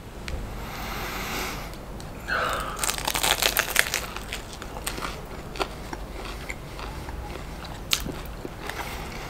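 A bite into a crisp grilled lavash shawarma wrap, crunching for about a second, followed by chewing with scattered crackles of the toasted flatbread.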